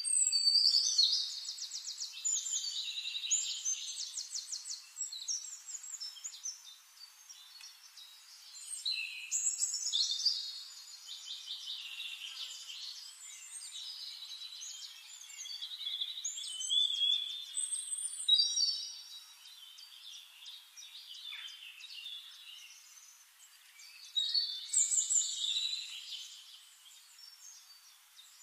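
Songbirds chirping and trilling, in bursts of fast, high, repeated notes that come and go.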